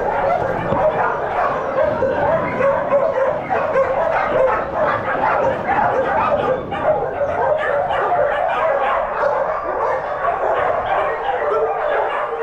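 Many shelter dogs barking, yipping and whining all at once, a dense, unbroken din of overlapping calls.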